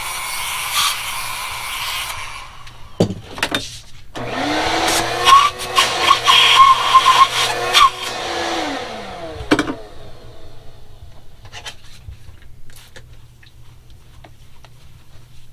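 A small hand-held power tool runs against a bowling ball for about two seconds and stops. About four seconds in, a shop vacuum with its hose held to the ball starts up with a rising whine, runs for about five seconds and winds down, followed by faint handling and rubbing sounds.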